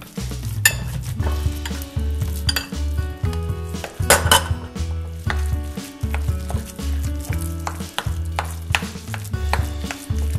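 Background music with a bass line under a rubber spatula scraping cooked oatmeal from a stainless steel pot and stirring it in a ceramic bowl, with a few short scrapes.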